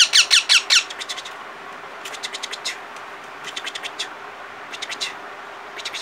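Parakeet chicks squawking: a fast run of loud, short calls that each drop in pitch in the first second, then quieter short bursts of the same calls about once a second.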